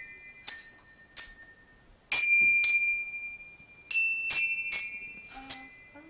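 Hand bells rung one at a time, each a single note that rings and fades: about eight strikes of different pitches at uneven gaps, picking out a tune.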